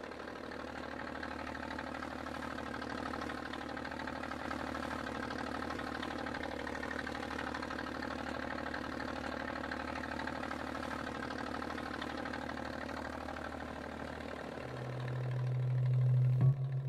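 A fishing boat's engine running steadily at a constant speed, with a fine, even beat. In the last couple of seconds a low droning tone swells in and grows louder.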